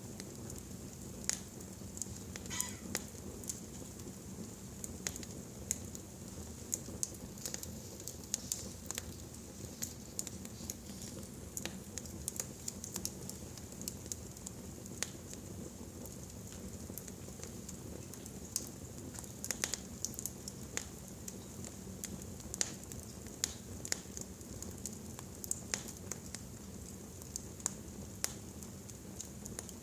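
Wood fire burning in a fireplace, crackling with irregular sharp pops over a steady low rustle.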